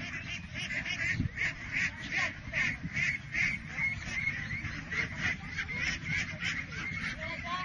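A large flock of domestic ducks quacking, many calls overlapping in a continuous chorus of several calls a second, over a steady low rumble.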